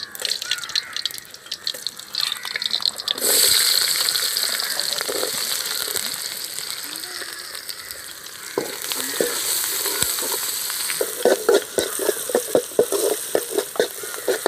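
Food frying in hot oil in a pan: a sudden burst of sizzling about three seconds in as something goes into the oil, easing off over the following seconds. Near the end a ladle stirs and scrapes the pan in quick strokes, about three or four a second, over the sizzle.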